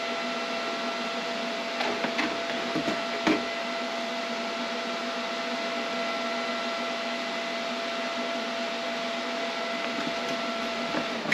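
Steady whirring hum of an unseen machine, with a few steady tones in it, that cuts off suddenly near the end. A few light clicks and knocks of plastic egg-turner trays being handled come about two and three seconds in.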